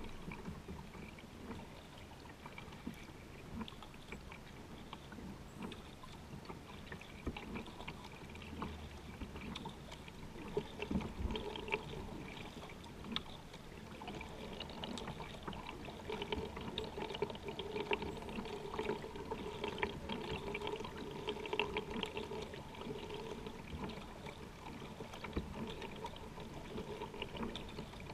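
Water trickling and splashing around a kayak being paddled, with many small drips and splashes throughout.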